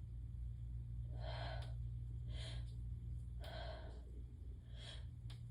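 A woman's sharp hitching gasps, four of them about a second apart, as she hovers on the edge of a sneeze brought on by Chhinkni sneezing snuff.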